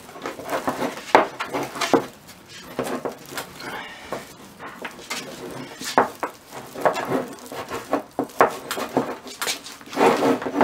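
Three-strand polysteel rope being spliced by hand: the strands rustle and creak as they are twisted open and pulled through, with irregular sharp clicks and knocks.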